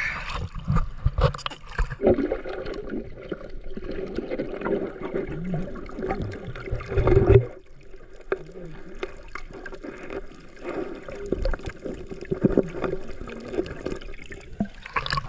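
Water splashing and sloshing in shallow water with many small knocks, over a steady hum that is strongest for a few seconds near the start.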